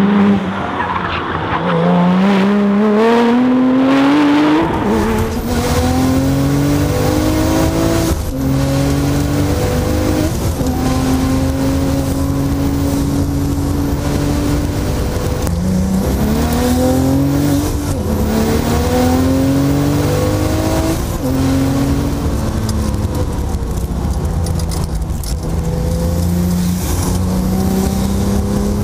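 Porsche 911 Turbo's twin-turbo flat-six with a Supersprint exhaust at full throttle on track. It is first heard passing from outside, its note rising, then from on board over heavy cabin and road rumble. The note climbs through the gears with a break at each upshift, holds steady along a straight, and falls off as the car slows for corners.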